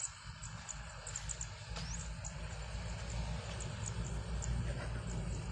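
Small birds chirping again and again in short high calls, over a low rumble that gets louder about two seconds in.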